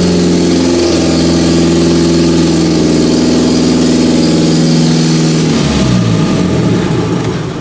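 1990 Geo Tracker's 1.6-litre four-cylinder engine running in gear with a newly replaced clutch, holding a steady note that creeps up slightly. About five and a half seconds in the revs drop and the pitch falls.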